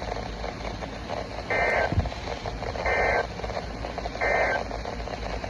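NOAA Weather Radio EAS/SAME end-of-message data tones: three short bursts of screeching digital data about a second and a half apart, over radio static.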